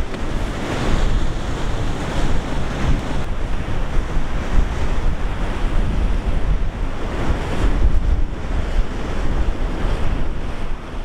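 Ocean surf breaking and washing in a continuous rush, with wind buffeting the microphone as a heavy low rumble.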